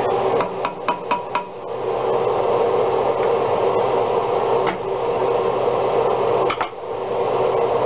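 A wooden spoon scraping and knocking against the bottom of a skillet for about the first second and a half, then a steady hiss of red wine simmering in the pan, with a single click or two later on.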